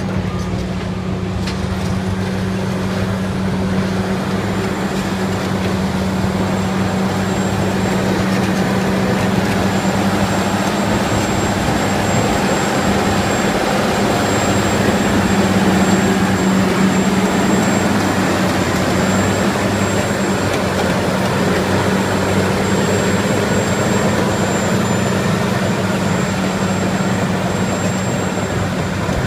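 Caterpillar crawler bulldozer working dirt: its diesel engine runs with a steady heavy drone, and its steel tracks clatter over it.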